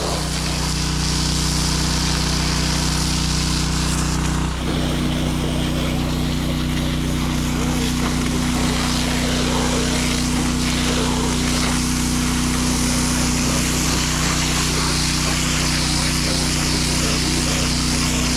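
Petrol-engined pressure washer running steadily, its engine note under the hiss of the water spray; the engine note shifts briefly about four and a half seconds in.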